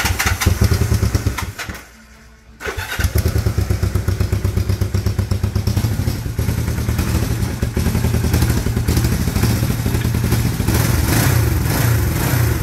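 1974 Honda CB450's parallel-twin engine being started from cold on the choke: it runs, cuts out for a moment about two seconds in, then catches again and settles into a steady, slightly uneven idle.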